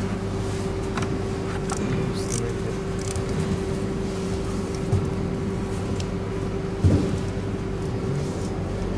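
A steady mechanical hum with a held tone that stops shortly before the end. Light clicks and knocks run through it, with a louder knock about seven seconds in.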